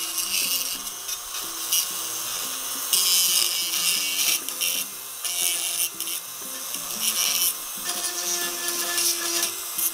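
Flex-shaft rotary tool grinding away hard plastic ribs, the bit biting in and easing off in spurts of a second or two, a harsh high-pitched grinding noise.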